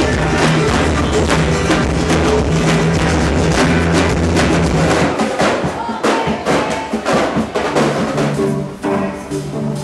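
Music with drums and a bass line; the bass drops out about halfway, leaving mostly drum hits, and comes back near the end.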